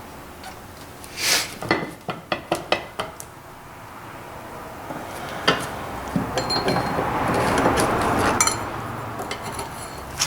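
Sharp metallic clinks and light taps of steel tools on the vise's metal parts: a quick run of about half a dozen in the first few seconds, then a longer stretch of rough noise with faint metallic ringing in the second half.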